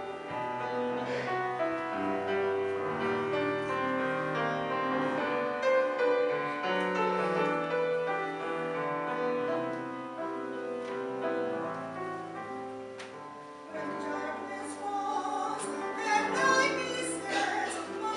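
Community choir singing in sustained, overlapping parts; the sound drops back a little past the middle, then swells louder near the end.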